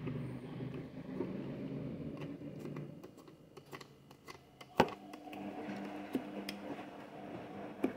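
Kitchen handling noises: low rubbing and rustling, then light clicks and one sharp knock a little under five seconds in, followed by a faint steady hum.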